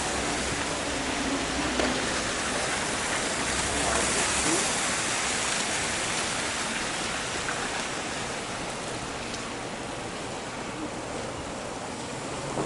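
Steady hiss of city street traffic, with a vehicle's low engine hum underneath for the first four or so seconds; the hiss slowly fades toward the end.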